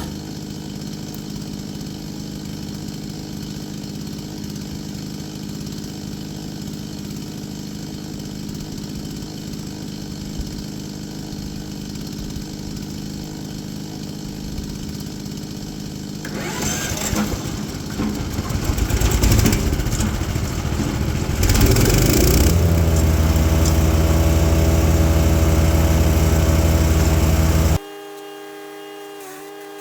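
Chipease D1500E wood chipper's 420cc four-stroke engine running steadily. About halfway through, a loud, rough, uneven grinding stretch of material going through the chipper, then a louder steady run. This cuts off abruptly near the end, leaving a fainter steady hum.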